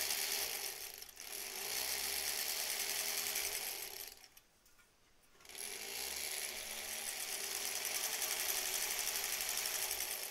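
Sewing machine stitching along the edge of a folded fabric tie strip, running steadily. About four seconds in it stops for about a second and a half, then runs again.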